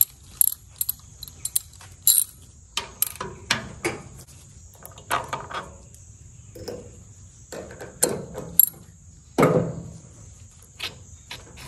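Hand tools clinking and knocking on metal as the bolts come out of a 1994 Tohatsu M40C outboard's water pump housing and the housing is worked off the lower unit: a run of sharp clicks with several longer rattling scrapes, the heaviest about nine and a half seconds in.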